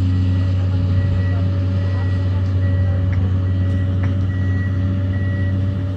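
Komatsu tracked excavator's diesel engine running steadily, with its high-pitched travel alarm beeping a little more than once a second.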